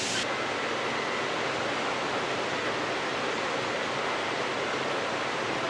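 Steady rushing air noise of room ventilation, with a faint thin high tone through the first half.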